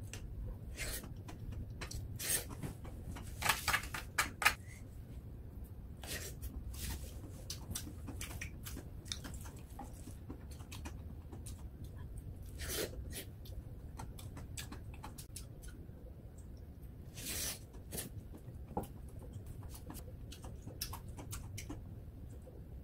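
Close-up eating sounds: chewing and lip smacking on mouthfuls of webfoot octopus fried rice, with scattered clicks and scrapes of a wooden spatula on the pot. A few louder clicks come in the first few seconds, and a couple more later on.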